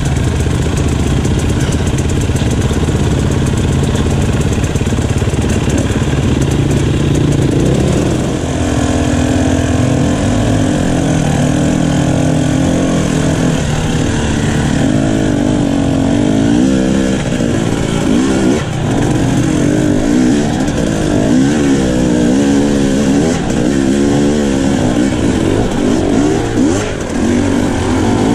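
Husqvarna dirt bike engine heard close up from the bike itself, running steadily at low revs, then from about eight seconds in revving up and down again and again as it picks its way up a loose, rocky climb.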